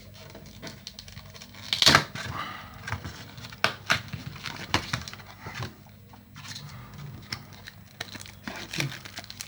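Packaging being opened by hand: rustling, crinkling and tearing with scattered small clicks, and one loud sharp rip about two seconds in.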